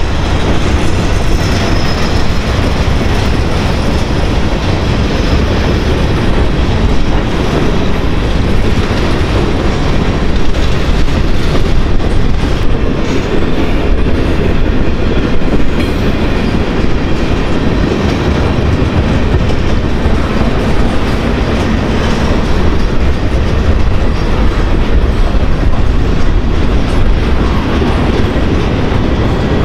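A freight train of covered hopper and tank cars rolls steadily past, with a loud, continuous rumble of steel wheels on the rails.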